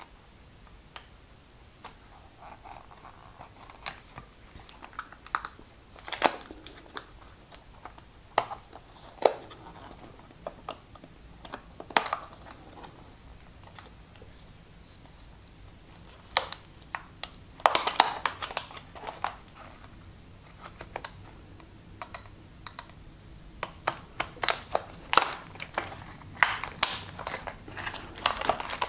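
A metal scribe picking and scratching at the plastic wrap of an electric unicycle's lithium-ion battery pack, heard as irregular sharp clicks and short scrapes. They grow thicker in the second half as the wrap is split and pried open.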